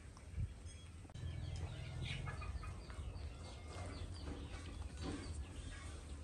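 Many short animal calls, several a second, beginning about a second in, over a steady low rumble.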